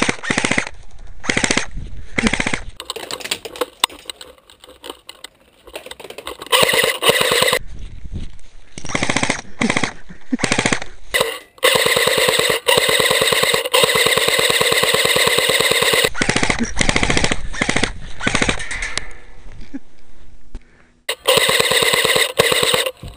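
Airsoft rifle firing on full auto in repeated bursts: short bursts at first, a long burst of about four seconds in the middle, and another of about two seconds near the end.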